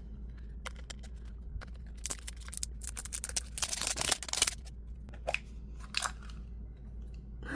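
Plastic blind-bag packaging being handled and torn open: scattered crinkles and clicks, with a denser stretch of crackling tearing from about two seconds in to four and a half.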